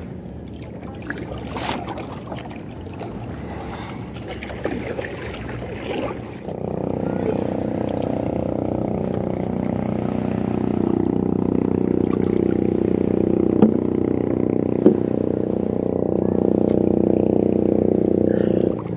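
An engine running steadily at an even pitch. It starts abruptly about six seconds in and cuts off just before the end, with two short clicks partway through. Before it, lower water and boat sounds.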